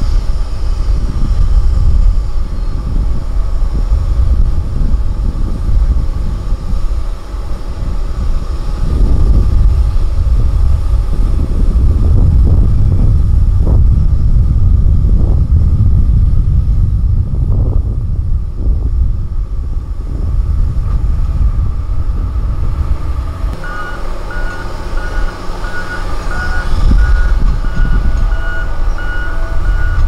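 Komatsu motor grader's diesel engine running under load with a heavy low rumble as its blade scrapes and pushes loose soil. From about three-quarters of the way in, a reversing alarm beeps steadily over it.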